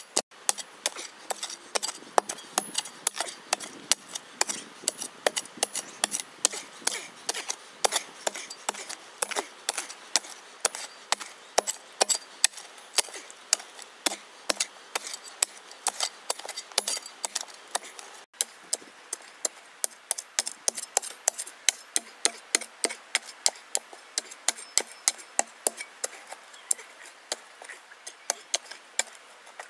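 Metal spade chopping and scraping into dry, stony soil and fern litter, with quick repeated strikes at about three a second.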